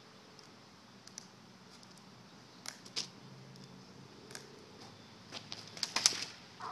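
Metal crutches tapping on asphalt a few times, then a quick run of sharp knocks and a clatter about five to six seconds in as the man falls and the crutches hit the road.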